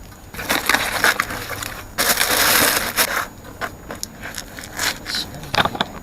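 Irregular crinkling, clicking and scraping handling noises, with a louder rustle lasting about a second near the middle.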